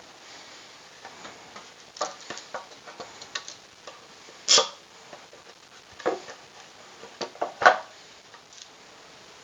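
Irregular clicks and knocks of wooden sled parts, screws and hand tools being handled during assembly, with a louder knock about halfway through and another near the end.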